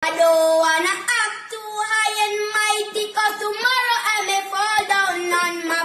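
A high, child-like singing voice carries a melodic line, with no bass or beat beneath it.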